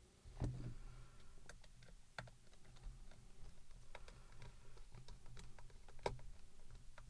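Irregular light clicks and taps of plastic headphone ear-cup parts and a screwdriver as the ear cup is screwed back together, with a sharper click about half a second in and another about six seconds in.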